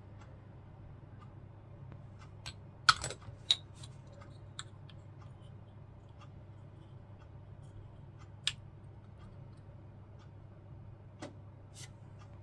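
Small sharp clicks and taps from handling plastic scale-model parts, a handful scattered through, the loudest about three seconds in, over a steady faint low hum.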